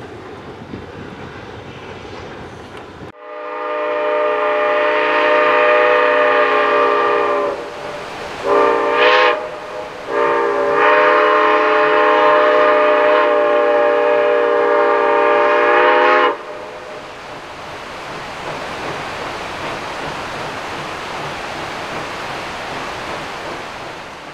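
Steam locomotive whistle blowing a long blast, two short blasts, then a second long blast, several tones sounding together. A steady rushing noise follows.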